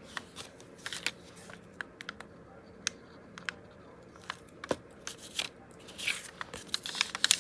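Paper-craft pieces handled on a paper-covered tabletop: a scatter of small clicks and taps as card, tape tabs and a plastic glue bottle are picked up and set down, with a longer paper crinkle about six seconds in.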